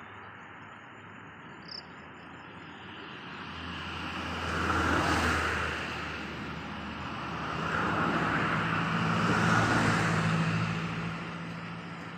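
Passing road vehicles: a rush of noise builds and fades, peaking about five seconds in, then a second, longer pass swells and dies away near the end.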